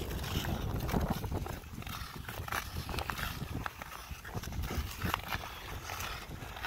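Ice skate blades scraping and clicking on natural lake ice in a series of irregular strokes.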